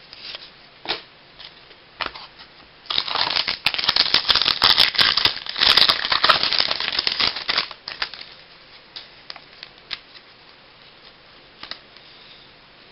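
Baseball cards and their packaging being handled: scattered light clicks and taps, with a few seconds of dense rustling and crinkling from about three to seven and a half seconds in.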